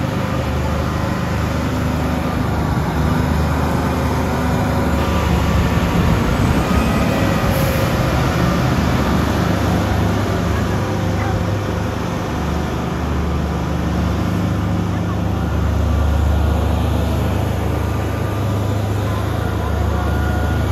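Rosenbauer Panther 6×6 airport crash tender's diesel engine running steadily as the big truck drives across wet tarmac, with a rushing noise of tyres and water spray over the engine hum.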